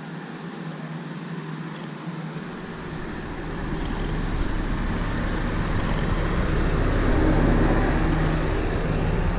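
Motor vehicle engine running steadily with a low hum. It grows louder from about two to four seconds in, with a deep rumble coming in.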